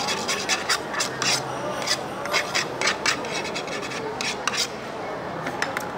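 Cutlery scraping and clicking against a dish in quick, irregular strokes.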